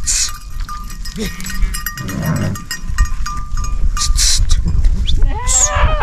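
Flock of sheep on the move, with bells ringing in short clinks throughout and one sheep bleating near the end, over a steady rustle and rumble.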